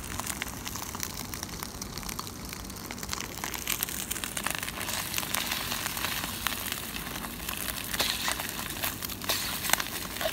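Egg sizzling in a hot wok while a metal ladle scrapes and knocks against the pan as it is stir-fried.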